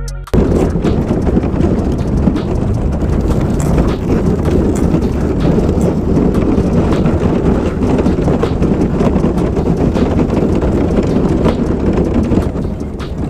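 Aluminum Crestliner boat hull plowing through thin ice: a loud, steady crunching roar packed with knocks and cracks as ice chunks strike the hull, easing off near the end.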